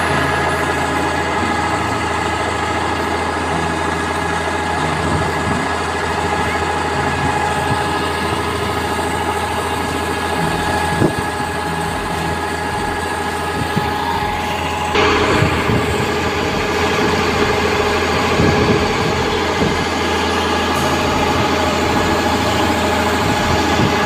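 Kubota combine harvester running steadily, its engine rumbling under a fixed mechanical whine while the unloading auger empties rice grain into a truck. About 15 seconds in the sound gets louder and brighter.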